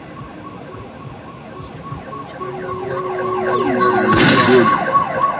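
Emergency vehicle siren in rapid repeating sweeps, growing steadily louder.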